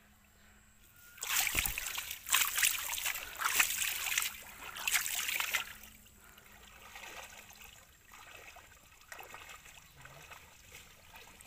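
Water splashing and sloshing as people wade and haul a drag net through shallow muddy water. It starts about a second in with several loud bursts of splashing, then drops to fainter sloshing after about six seconds.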